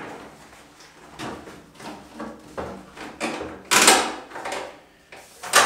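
A heavy red power cable being handled and pulled against the wall and an inverter's wiring bay by a gloved hand: irregular rubbing and knocking, loudest about four seconds in and again near the end.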